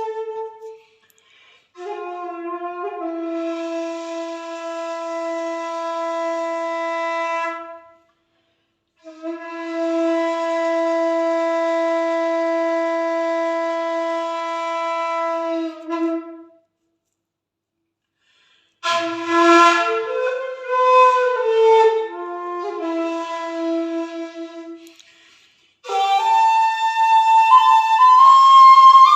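A jinashi shakuhachi, 1.6 length and made of black madake bamboo, played solo. Two long held low notes come with pauses between them, then a phrase of shifting notes that opens with a breathy attack, and a louder, higher passage near the end.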